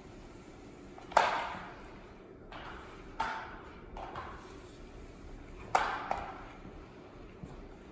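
Two sharp knocks with a ringing echo, about a second in and again near the end, and a few softer clacks between them, in an empty room with a bare hardwood floor. They are typical of the plastic head and pole of a paint pad being set down and knocking on the floor and baseboard.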